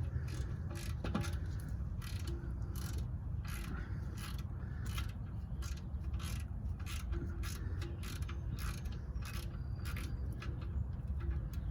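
Socket ratchet clicking in quick, uneven runs of sharp clicks as a bolt is run in under the car, most likely the oil drain plug being snugged down.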